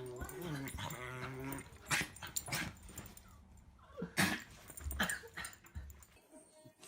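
A dog whining in a wavering pitch for the first second or two, then sneezing several times in short, sharp sneezes spaced about a second apart.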